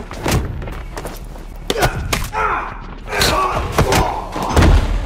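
Film fight sound effects: a quick series of sharp punch, kick and body-blow impacts, about eight in all, with a heavier, deeper thud near the end.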